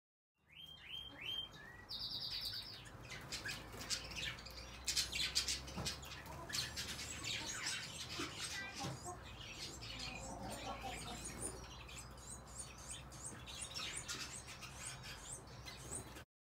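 Mixed birds of a community aviary chirping and twittering, a dense run of short high calls with a few falling whistled notes, over a low steady hum. It starts about half a second in and cuts off abruptly near the end.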